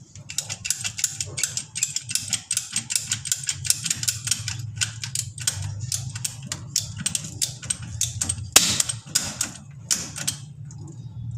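Rapid sharp clicks, about four a second, from hand work on the plastic pipe fittings of a water tank, with two louder clicks near the end; the clicking stops about a second before the end.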